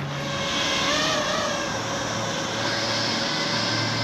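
FPV drone in flight: a steady propeller buzz with a high whine that wavers up and down in pitch about a second in.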